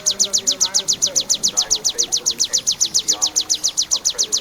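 Ciblek (prinia) singing its rapid 'kristal' song: a long, even string of sharp, high chips at about ten notes a second.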